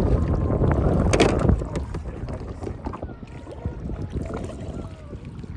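Kayak paddling on open water: paddle blades splashing and dripping, with wind rumbling on the microphone. The rumble is loudest for about the first second and a half, then the water sounds go on more quietly with scattered small ticks and drips.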